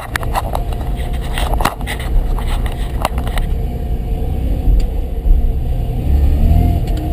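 Mazda RX-7 with its rotary engine running, giving a strong low rumble. A run of sharp knocks comes in the first three seconds or so, then the rumble goes on more smoothly. The car is being checked for a knocking sound in its gearbox.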